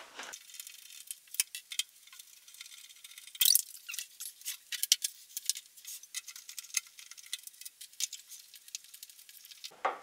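Screwdriver working the screws out of a microwave oven's sheet-metal casing: a run of small, irregular metallic clicks, ticks and scrapes, with a louder clatter about three and a half seconds in.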